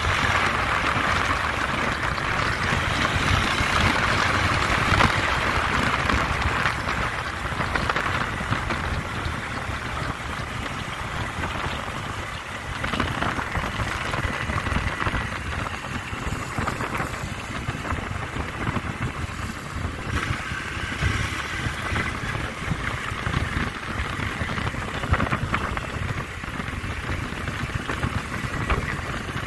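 Wind noise on the microphone of a moving motorcycle, with the motorcycle's engine running underneath. The wind hiss is strongest for the first several seconds, then eases somewhat.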